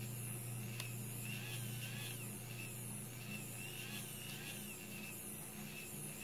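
AIO Robotics 3D printing pen's filament-feed motor running at a low speed setting as it pushes PLA filament through the heated pen: a steady low hum with a faint wavering whine above it. A faint click just under a second in.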